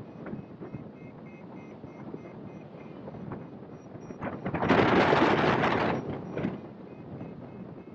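Airflow rushing over the microphone of a hang glider in flight, with a loud gust of wind noise from about five to six seconds in. Underneath, faint rapid, even beeping from the glider's variometer signals that it is climbing.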